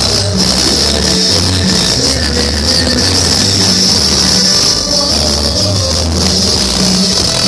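Loud dance music from a large sonido sound system, with a pulsing bass beat and a constant high hiss of percussion over it.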